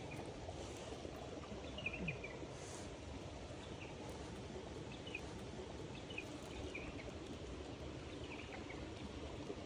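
A small bird calls with short, falling chirps every second or two over a steady low rushing noise.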